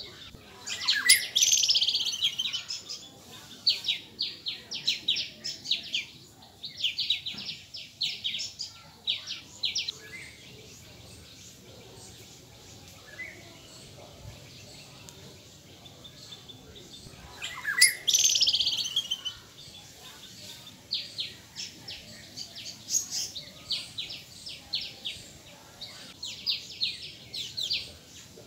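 Quick runs of high, bird-like chirps repeating in short bursts, with two louder sweeping calls, one about a second in and one about two-thirds of the way through.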